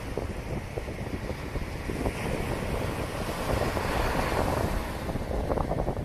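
Small sea waves breaking and washing up a sand and shingle beach, the surf swelling louder about halfway through, with wind buffeting the microphone.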